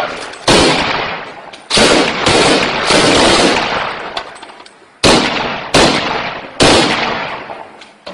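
Gunshots in close urban combat: about seven single loud reports at irregular intervals, each ringing out in a long echo that fades over about a second.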